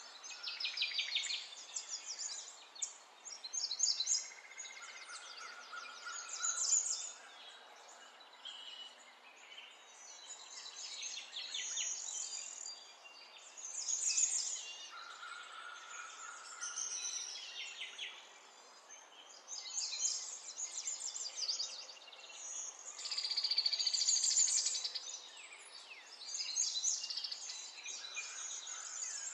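Several songbirds singing over each other: quick chirps and rapid trills with a few held whistled notes, over a faint steady hiss of outdoor ambience.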